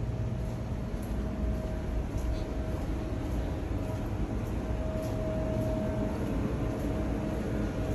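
Pressure washer engine and pump running steadily: a constant low drone with a faint steady hum.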